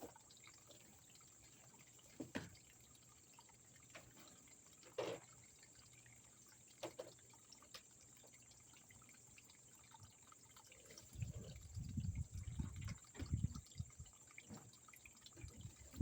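Faint trickling and dripping of a garden pond waterfall, with a few separate drop-like sounds. About eleven seconds in comes a run of low thumps and rumbling lasting about three seconds.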